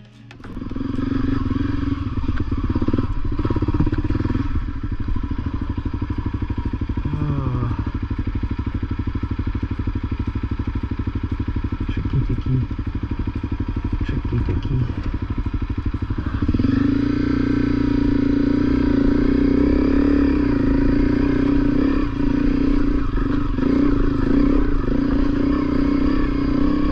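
Honda CRF250L's single-cylinder four-stroke engine running under way on a rough dirt trail, with scattered knocks and clatter from the bike. About two-thirds of the way in the engine note grows louder and then holds steady.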